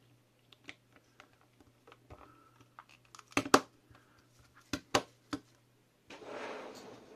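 Plastic clicks and taps as the clear plastic case of an LED fidget spinner is handled and pressed together around its bearing, with a few sharp snaps about halfway through. Near the end comes about a second of rustling scrape, over a faint steady hum.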